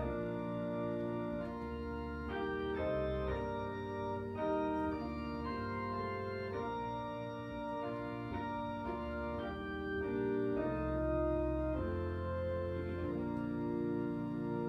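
Organ playing a hymn tune in sustained block chords, the harmony changing every second or so.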